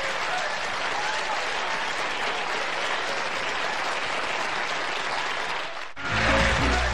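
Studio audience applauding steadily. About six seconds in the applause cuts off and music with steady low notes starts.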